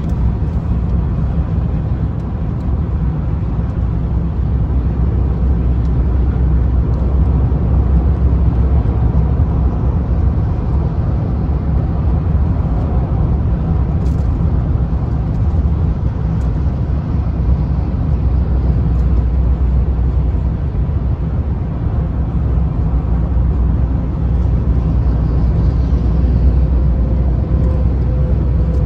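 Steady low rumble of a vehicle driving along an interstate highway: engine and road noise.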